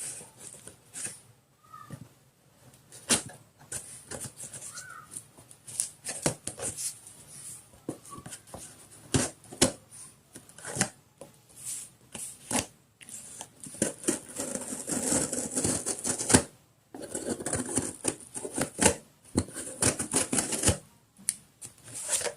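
Cardboard camera box being handled and opened by hand: irregular clicks, taps and rustling of packaging, getting busier and louder with scraping and rustling in the second half.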